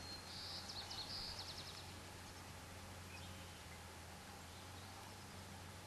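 A small bird calling briefly, a quick run of high chirping notes in the first two seconds, over faint outdoor background noise with a steady low hum.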